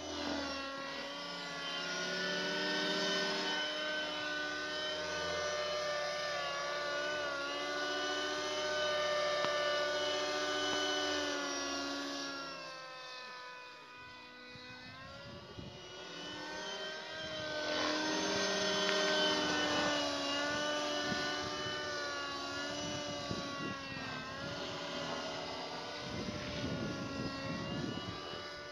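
Helicopter flying past overhead, its engine whine and rotor running steadily. Its pitch drops as it passes and it fades about halfway through, then comes back louder, with the rotor chop plainer near the end.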